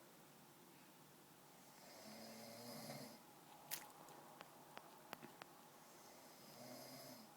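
A man snoring in bed: two long snores about four and a half seconds apart, one about two seconds in and one near the end. A few short sharp clicks fall between them.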